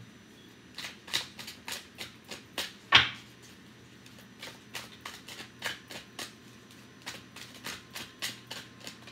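A tarot deck being shuffled by hand: a run of short, crisp card clicks and flicks at an uneven pace, with one much louder snap about three seconds in.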